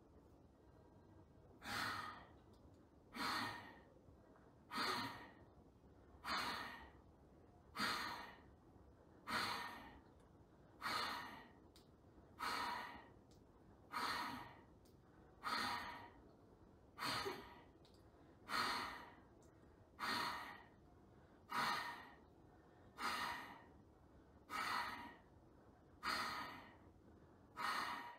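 Bhastrika (bellows breath) pranayama: a man breathing forcefully and rhythmically, about one sharp whoosh of breath every second and a half, starting about two seconds in.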